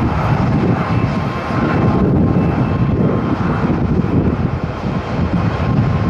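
Jet engines of an ANA Boeing 787 (Rolls-Royce Trent 1000) running loud as the airliner rolls down the runway. A continuous heavy rumble with a faint steady whine, and uneven low buffeting from strong wind on the microphone.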